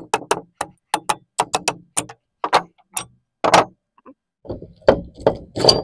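Rapid, irregular metallic clicks and taps of hand tools and loose metal parts as an old water pump is dismantled, its pump section being unbolted from the motor and coil, with a few heavier knocks in the second half.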